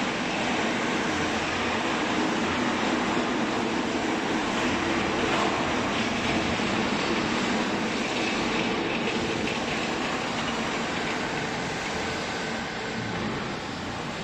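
Hydraulic clothes baling press running: a steady mechanical drone from its motor and pump, easing slightly near the end.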